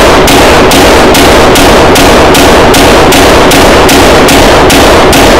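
9mm Glock 17L pistol with a compensator firing a rapid, steady string of shots, about three a second, so loud the recording is overloaded. It ends near the close. The freshly oiled pistol cycles every round of the same ammunition without a stoppage.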